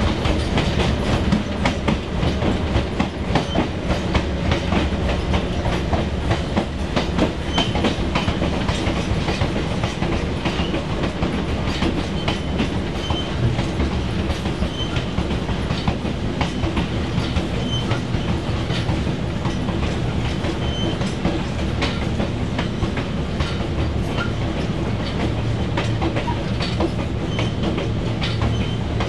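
A diesel-hauled train rolling along jointed track, its wheels clicking and clacking over the rail joints over a steady low engine drone.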